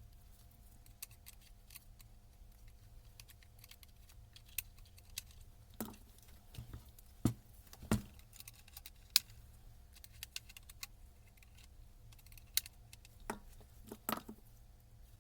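Irregular clicks and knocks of metal parts and hand tools being handled on a workbench, a few sharper knocks in the middle, over a steady low hum.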